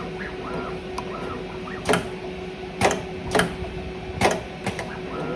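Automatic wire stripping and bending machine running: a steady motor hum with short whines repeating under a second apart, and four loud sharp clacks as its mechanism works the wire.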